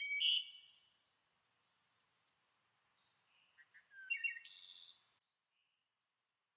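Birds chirping with rapid high trills: a loud burst at the start and another about four seconds in, with faint chirps between, cutting off suddenly a little after five seconds.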